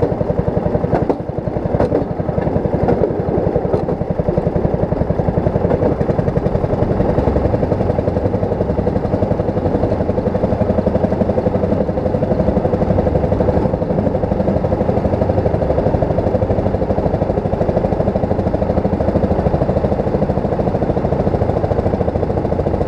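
Railroad speeder's small engine running steadily at cruising speed, its rapid even firing pulse carrying with the rumble of the wheels on the rails. A few sharp clicks come about a second in.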